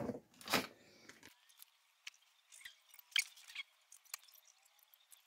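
Faint handling of small steel pieces at a bench vise with gloved hands: a brief knock about half a second in, then scattered light clicks and taps.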